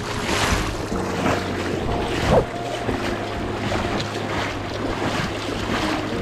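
Fast river water rushing over gravel riffles, with wind gusting on the microphone in repeated surges; the loudest surge comes about two and a half seconds in.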